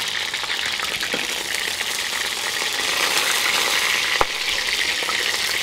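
Chicken drumsticks sizzling and crackling in hot rapeseed oil in a kazan, more pieces being laid into the fat. One sharp click about four seconds in.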